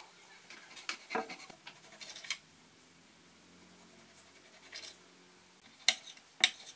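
Kitchen knife cutting raw beef into cubes on a plastic cutting board: scattered scrapes and knocks of the blade on the board, with a quieter stretch in the middle and the two sharpest knocks near the end.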